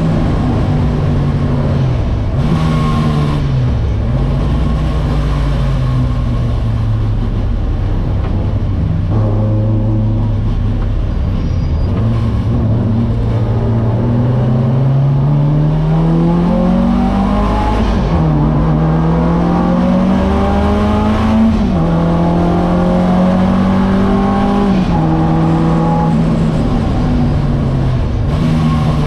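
Alfa Romeo 1600 GTA's twin-cam four-cylinder race engine heard from inside the cabin: low revs through a slow corner, then accelerating hard from about halfway, the pitch rising steadily and dropping back at each of three quick upshifts.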